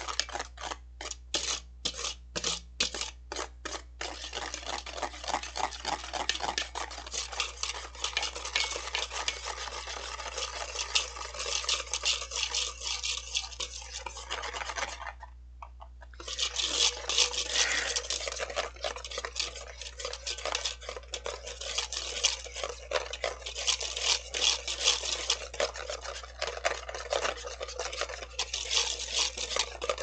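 Wire balloon whisk beating dalgona coffee mixture in a stainless steel bowl, the wires scraping and clattering against the metal. It starts as a few separate strokes a second, then turns into fast continuous whisking. It stops briefly about halfway through and resumes fast and louder. The mixture is being whipped toward a thick foam.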